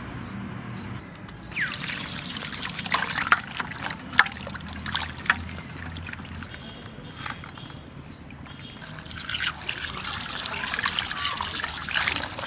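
Water pouring and splashing into a steel bowl as hands rinse and rub pieces of raw duck meat. It starts about a second and a half in, eases off briefly in the middle, then picks up again.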